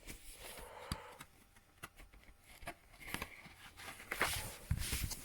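Vinyl LPs in card sleeves being handled and pulled from a box set: paper-and-card rustling with light taps and knocks, busier in the second half.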